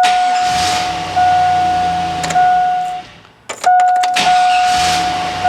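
Starter cranking the Silverado's 5.3-litre V8 for about three seconds, stopping briefly, then cranking again about half a second later, with a steady high electronic tone sounding over it.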